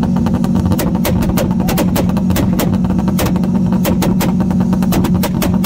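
Car engine held against a two-step launch rev limiter, its exhaust cracking and popping in rapid, irregular bangs, several a second, over a steady held engine note.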